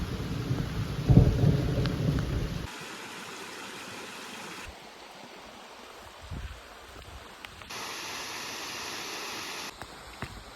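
Rushing water noise from waterfalls and streams in a series of short, abruptly cut clips, with a loud low rumble in the first two and a half seconds.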